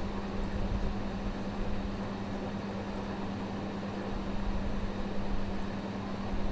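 Steady background hum and hiss with no speech: even room noise with one constant low-pitched hum and no distinct events.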